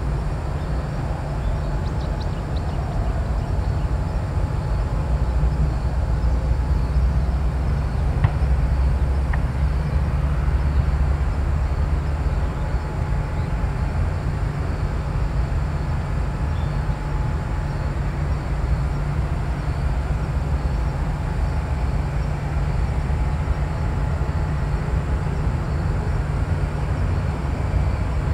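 A distant Boeing 737-500's CFM56 jet engines running at low thrust while it lines up on the runway for takeoff: a steady low rumble with a faint thin whine.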